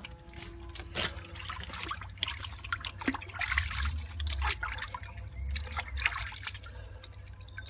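Hands sloshing and splashing in the water of an open rain-water butt, rubbed together to rinse off soil, in irregular splashes and trickles.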